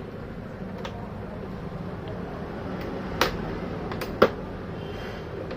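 A few sharp plastic clicks and knocks as the all-in-one's stand base is worked loose from its plastic clips. The two loudest come in the second half.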